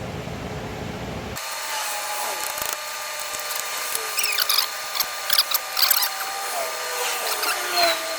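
Metal tool work on a tractor starter motor's parts: a thin squealing tone that drifts slowly lower, with sharp scraping clicks and squeaks bunched between about four and eight seconds in.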